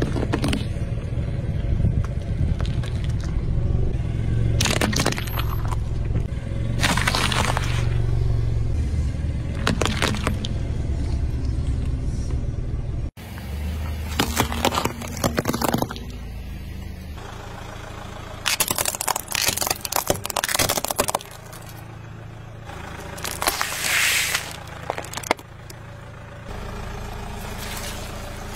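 A car tyre rolls slowly over objects and crushes them: a cardboard cheese box, white eggplants and a pineapple. There are a series of sharp crunches, cracks and pops as each gives way, over the low rumble of the car.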